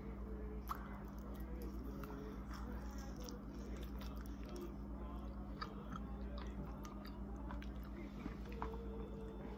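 Close-miked chewing of Valentine's candy: irregular small crunches and wet mouth clicks, over a steady low electrical hum.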